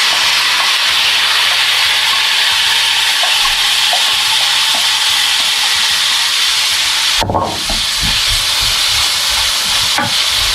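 Chopped onion, carrot and frozen capsicum sizzling in hot olive oil in a frying pan: a loud, steady hiss. From about seven seconds in, a few low knocks of a utensil stirring the pan come through.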